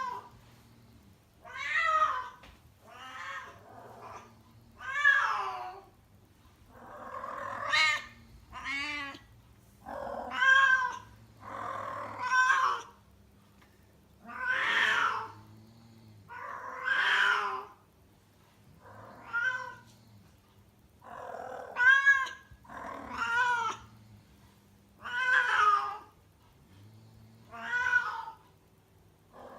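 Female domestic cat in heat calling over and over, one loud drawn-out yowl about every two seconds, each bending up and down in pitch: the estrus call of an unspayed female.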